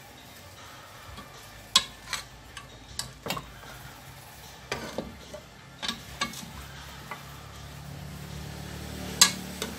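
Long metal spoon clinking and scraping against the side of an aluminium stockpot as boiled pork leg is lifted out of the broth: about nine sharp knocks, the loudest near the end, over a low hum that grows louder in the second half.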